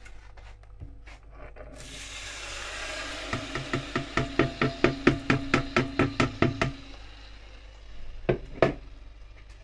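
Marinated chicken pieces tipped from a bowl into hot olive oil in a wok, setting off a sizzle, while the bowl is scraped out in quick, even strokes, about five a second for some three seconds. Two knocks near the end.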